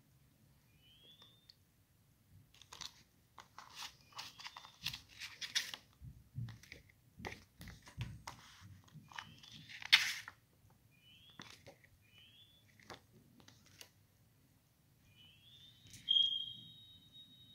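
A plastic Blu-ray case and its paper inserts being handled: rustling, crinkling and small plastic clicks, with one sharp click about ten seconds in. A few short high chirps sound, and a longer high tone starts near the end.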